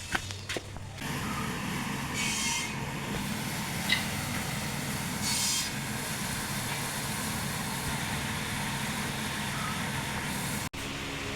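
Electric table fan running with a steady hum and airy hiss, after a few clicks in the first second.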